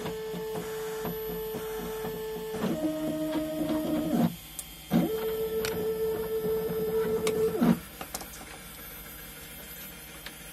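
Stepper motors of a DIY CNC laser cutter whining as they drive the laser head along its cutting path, the tone jumping to a new pitch with each change of move and breaking off briefly about four seconds in. The motors stop near eight seconds in, leaving a fainter steady hum.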